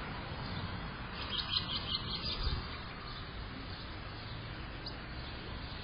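A bird chirping: a quick run of about ten short, high notes between about one and two and a half seconds in, then a single faint note near the end, over a steady background hiss.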